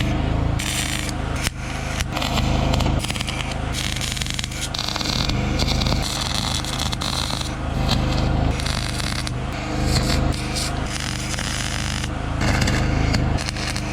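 Electric arc welder tack-welding the cracked spot-weld seams of a car body. Irregular bursts of crackling and sputtering start and stop every second or so over a steady low hum.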